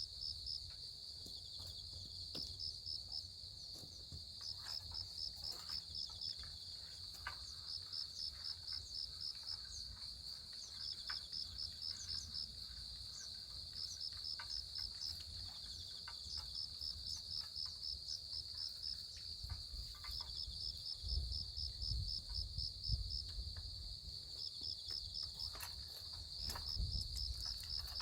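Crickets chirping in a steady high-pitched chorus of fast pulsing trills that swell and fade in rhythmic bursts. A low rumble comes and goes underneath, strongest about three quarters of the way through.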